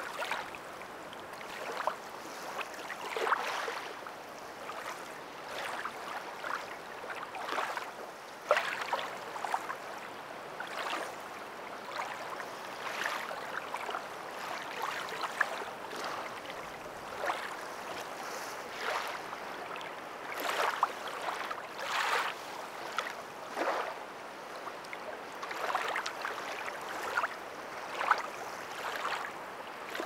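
Small lake waves lapping, with irregular splashes every second or two over a steady wash of water.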